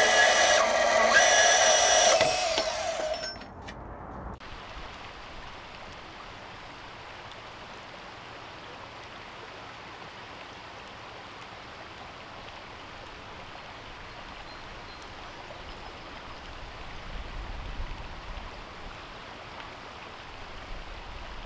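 DeWalt 20V Max cordless deep cut band saw running through metal, a steady high ringing tone, fading out about three seconds in. After a brief gap, a steady, even hiss of running water from a shallow stream takes over, a little louder near the end.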